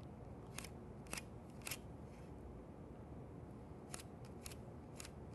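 Faint short scratches of a pencil drawing layout lines on a wooden board along a speed square. There are three quick strokes about half a second apart about a second in, then three more near the end.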